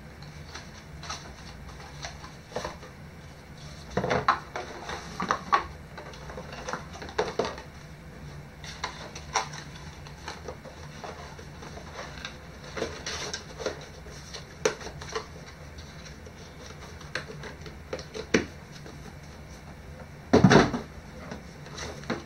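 Cardboard boxes and small plastic accessories being handled: scattered taps, scrapes and rustles as items are lifted out of their cardboard inserts, with a louder clatter about twenty seconds in.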